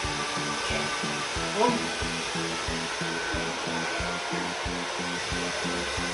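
Hair dryer blowing a steady stream of air, a continuous even hiss with a regular low pulsing beneath it. A short exclamation of "Oh" about one and a half seconds in.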